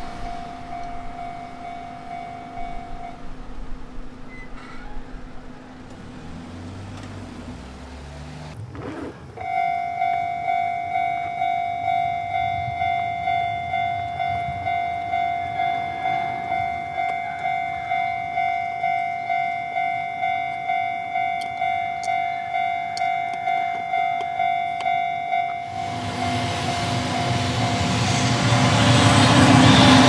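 Japanese railway level-crossing warning bell ringing at an even pace of about two strikes a second. It falls silent a few seconds in, starts again after about nine seconds, and rings on. Near the end the rumble of an approaching freight train hauled by an electric locomotive rises and swamps it.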